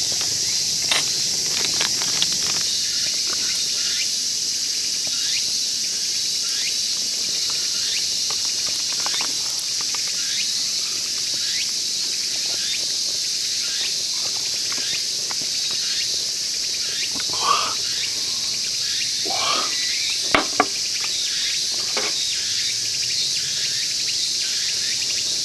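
Steady high-pitched chorus of summer forest insects, with scattered small crackles and pops from sausages grilling on a tabletop mesh grill. Two sharp clicks a fraction of a second apart about twenty seconds in.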